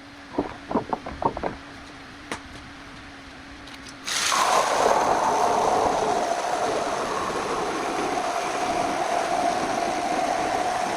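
A few sharp knocks over a low hum, then about four seconds in a jigsaw starts abruptly and runs steadily, its pitch sinking slightly as the blade cuts into hardwood.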